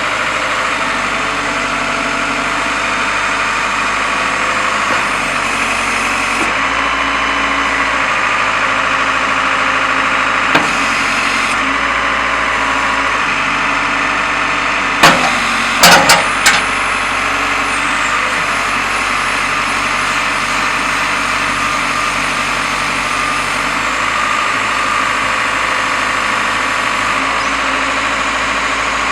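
Diesel engine of a CASE 580SM backhoe loader running steadily. A single sharp knock comes about a third of the way in, and a quick cluster of loud knocks comes about halfway through.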